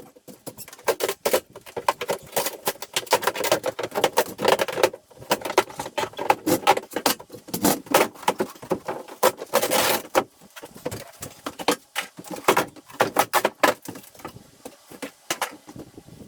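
Interior wall being pried open and torn apart by hand: a dense, irregular run of cracking, knocking and rattling as boards and debris come loose and fall.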